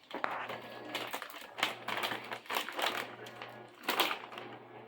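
Crunchy rolled tortilla chips being bitten and chewed, a quick irregular run of crunches.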